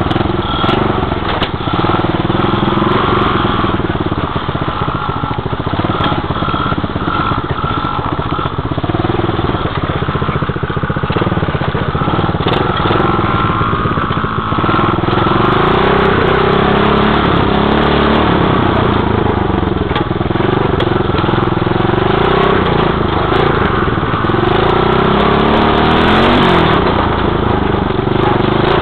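Small dirt bike engine running while being ridden, heard up close from the bike, its pitch rising and falling with the throttle.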